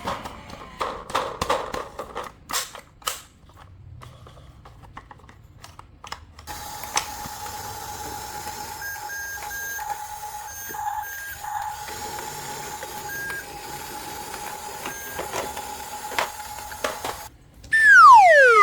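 Handling clicks and taps, then a steady electronic tone with short higher beeps, ending in a loud falling whistle.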